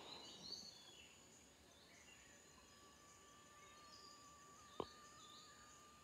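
Near silence in tropical forest: faint high bird chirps and a thin, steady, slightly wavering tone, broken once by a single sharp click about five seconds in.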